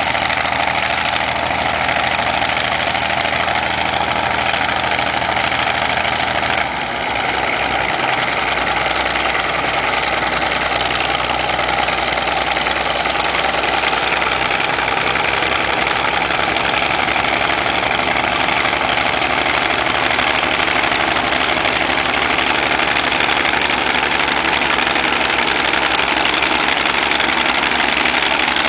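Diesel engines of antique crawler bulldozers running steadily as they work a dirt pile. The engine note changes abruptly about seven seconds in, then holds steady again.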